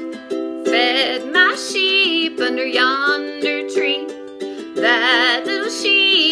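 A woman singing a folk children's song, the sheep verse, to a strummed ukulele; the sung line wavers with vibrato over sustained chords.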